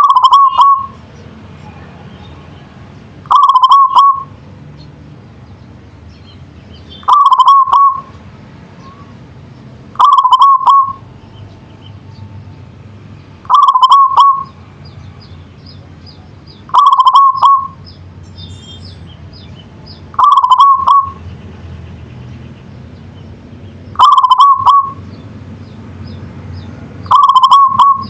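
Zebra dove cooing: a short trilled coo phrase repeated nine times, about every three to four seconds.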